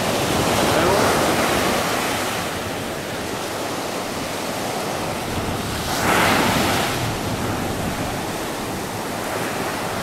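Small waves breaking and washing up a sandy shore, a steady hiss of surf that swells with a louder surge about a second in and another about six seconds in.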